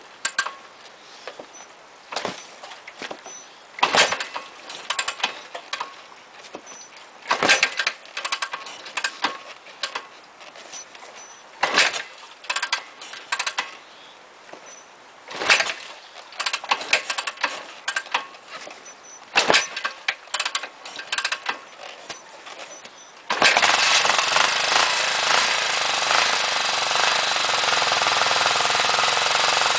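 Cold 1980 Yamaha XT500 single-cylinder four-stroke being kick-started on choke: a string of kicks a few seconds apart, each a short clatter as the engine turns over without catching. About three-quarters of the way through it fires and keeps running, loud and steady.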